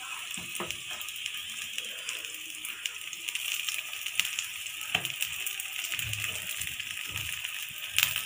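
Oil sizzling steadily under vegetable-stuffed wheat flatbreads shallow-frying in a pan, with a few light taps of a wooden spatula as they are turned.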